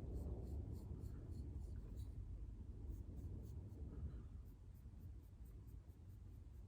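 Faint scratching of a hand tool scoring marks into a clay pot, heard as a quick run of light ticks over a low rumble.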